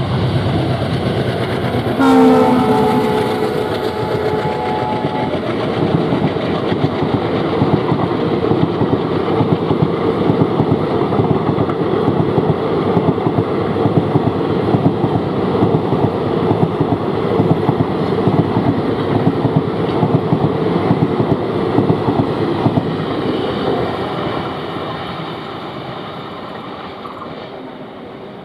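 Twin WDM3A ALCO diesel locomotives running, then sounding a multi-tone horn for about three seconds. The coaches then pass with a rapid, regular clickety-clack of wheels over rail joints, fading away near the end.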